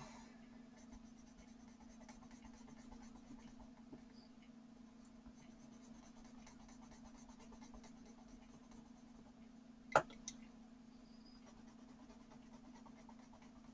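Coloured pencil scratching lightly across smooth hot-pressed paper in loose strokes, over a steady low hum. A sharp click about ten seconds in, followed by a lighter one, is the loudest sound.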